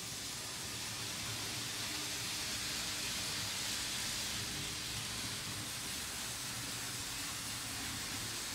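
Märklin HO model trains running on M-Track, a steady rushing rolling noise that swells a little in the middle as a train passes on a rear track.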